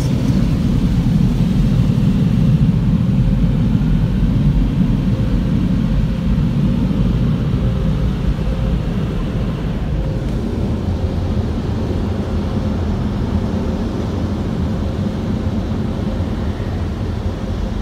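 Automatic tunnel car wash machinery and water sprays running, heard muffled through a car's closed windows as a steady low rumble that eases a little about halfway through.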